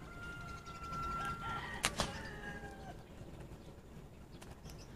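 A rooster crowing: one long drawn-out call that drops in pitch at the end. Two sharp clicks come about two seconds in.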